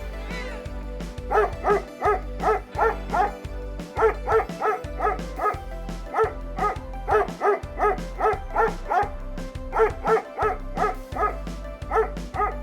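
A dog barking in quick runs of short, sharp barks, several a second, over background music.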